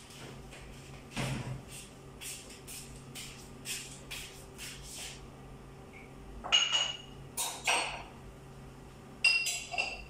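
Dishes and utensils knocking and clinking as someone works at a kitchen counter. In the second half come a few sharp clinks that ring on briefly, over a faint steady hum.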